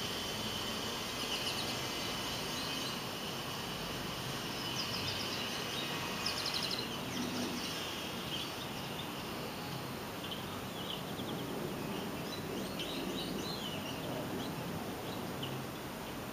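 Steady background noise with faint, scattered high bird chirps.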